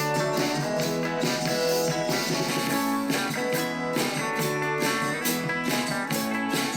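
A guitar-led song played back through a small JBL portable Bluetooth speaker with a single 3-watt driver. The sound has almost no deep bass below about 100 Hz.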